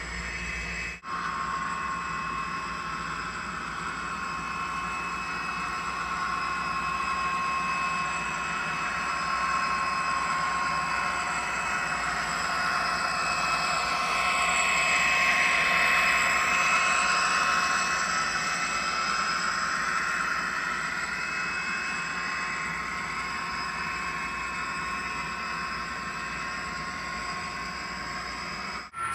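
HO-scale model train running on a layout, pulling Tangent boxcars: a steady mechanical whine with several constant tones and the rush of wheels on rail. It grows louder as the train passes close about halfway through, then fades back.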